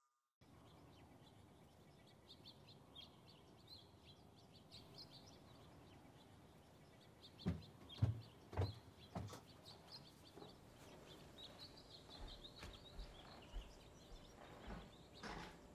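Quiet ambience with birds chirping faintly outside throughout. A few soft knocks and thumps come about halfway through, with more scattered ones near the end.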